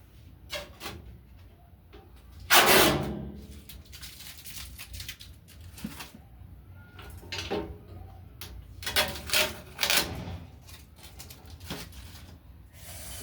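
Packaging being handled and pulled off a new cooker: a series of rustles and scrapes, the loudest about two and a half seconds in and a cluster of shorter ones near the end.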